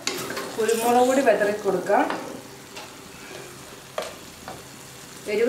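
Wooden spatula stirring and scraping thick onion-tomato masala in a clay pot as it fries and sizzles. There are loud scraping strokes in the first couple of seconds, then a quieter sizzle with a single knock about four seconds in.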